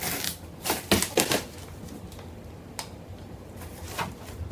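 Cardboard box and packing being opened and handled: a few short rustles and scrapes in the first second and a half, a sharp click near the middle, and one more scrape near the end.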